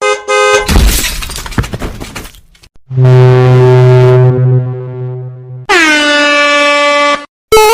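A run of stock sound effects. A short tone comes first, then a noisy crash like something breaking, then a long, loud air-horn blast. Near the end comes a tone that drops sharply in pitch and then holds, followed by a quick rising tone.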